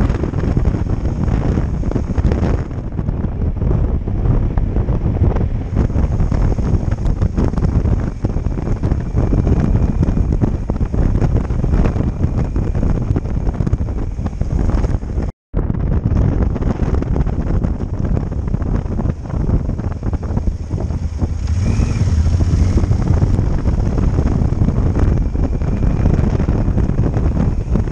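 Wind rushing and buffeting over the microphone of a moving Yamaha Super Tenere XT1200ES motorcycle, with the bike's engine running underneath. The sound drops out completely for a split second about halfway through.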